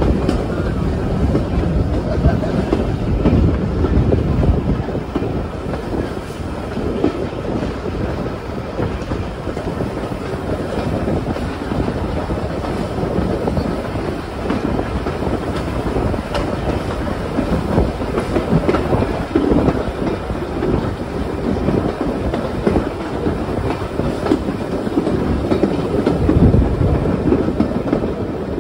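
Vintage steam-railway carriages running along the track at speed, a steady rumble with the clatter of wheels on the rails, heard from an open carriage window.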